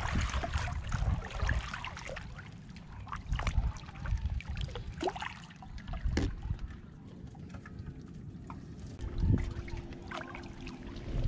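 Water lapping and trickling around a wooden fishing boat, with scattered knocks and clunks from its planks and gear being handled. A faint steady hum comes in near the end.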